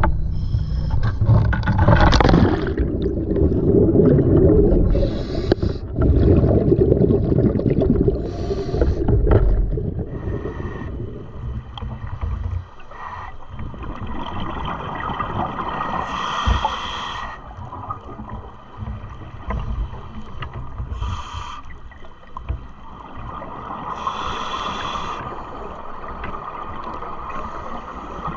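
A splash as a diver enters the sea about two seconds in, followed by a loud rumbling rush of water and bubbles. Then, underwater, a scuba regulator breathes, with bursts of exhaled bubbles every few seconds.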